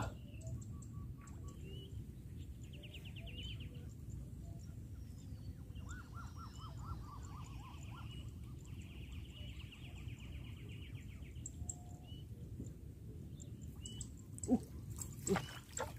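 Birds calling in a wetland over steady low background noise: a short trill about three seconds in, a run of lower repeated notes around six seconds, and a longer trill from about eight to eleven seconds. A few short clicks or knocks sound near the end.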